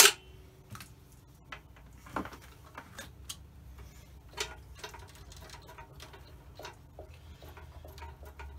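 Scattered clicks and taps from a Fluke 8125A multimeter's front-panel pushbuttons and knobs being pressed and turned by hand, with a sharp click at the start the loudest.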